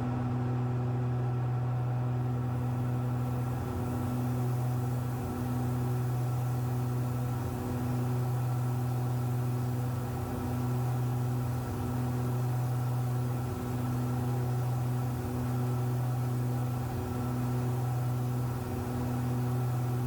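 Cabin drone of a pressurized Cessna 337 Skymaster's front and rear piston engines and propellers in steady cruise: a deep, even hum with a slow, regular wavering about every second and a half to two seconds, the beat of the two engines turning at slightly different speeds.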